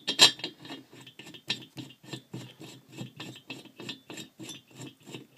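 Piston stop being screwed by hand into the spark-plug hole of a moped's aluminium cylinder head: a steady run of short scraping metal clicks, about four a second, a little louder at the start.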